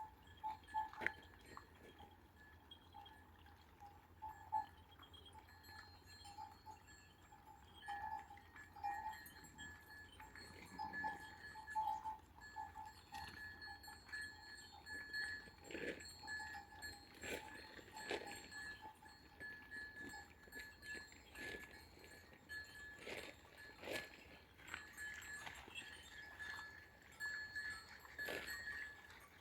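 Bells on a grazing flock clanking and ringing irregularly, with scattered sharp clanks.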